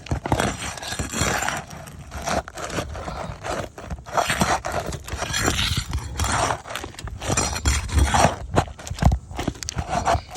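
Asphalt roof shingles being pried and handled: irregular scraping and crunching with scattered short knocks and low thumps.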